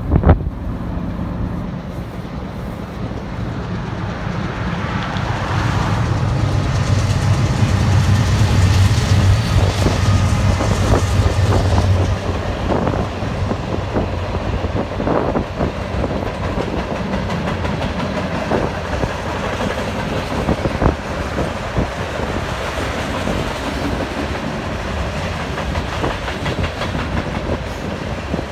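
Norfolk Southern freight train passing. A low diesel engine drone builds to its loudest about eight to twelve seconds in and then fades, giving way to the steady rumble of freight cars rolling by, with scattered clicks from the wheels.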